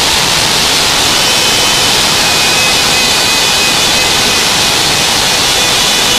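Loud, steady roar of a football stadium crowd, with a few faint held tones running through it.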